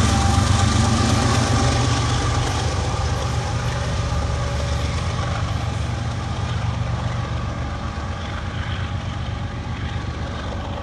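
Loaded ethanol tank cars of a freight train rolling past with a steady low rumble and rattle, slowly fading.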